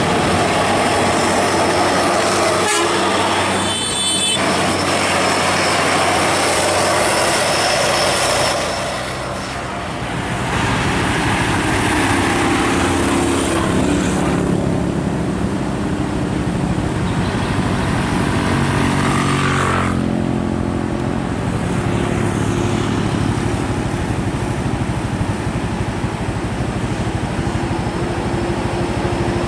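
Hino 500 truck's diesel engine running under load among passing road traffic, with a short horn toot about four seconds in. The engine settles into a steady, even tone from about twelve seconds on.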